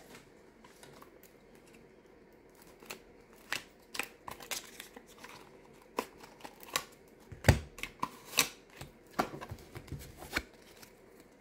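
A deck of tarot cards being handled and shuffled: scattered short snaps and taps of card stock starting about three seconds in, with one louder knock about seven and a half seconds in.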